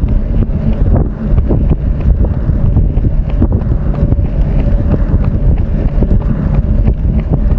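Heavy wind buffeting on the microphone of a camera carried on a run, a continuous low rumble with short thumps here and there.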